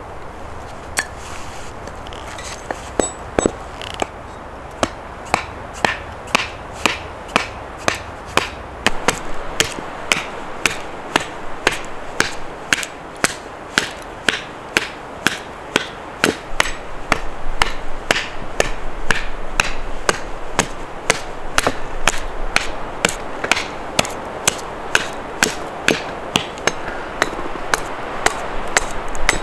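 A hand tool striking over and over at a steady pace, about two sharp blows a second, starting about a second in.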